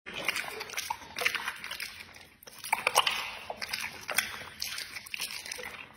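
A dog licking and smacking its lips: wet mouth clicks and slurps in irregular runs, with a short pause about two and a half seconds in.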